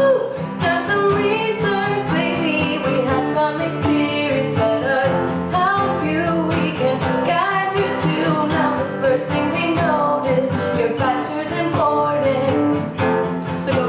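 Acoustic guitar strummed in a steady rhythm while a woman sings over it.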